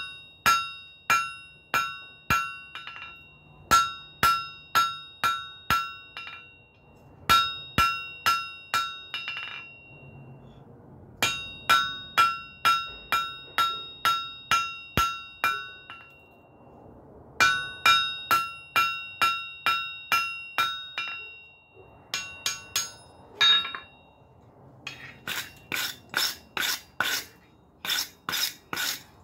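Hand hammer striking yellow-hot folded flat bar on a steel anvil to set a forge weld, about two blows a second in runs of several, each blow ringing off the anvil. Near the end it changes to quicker scraping strokes, a wire brush scrubbing scale off the hot steel.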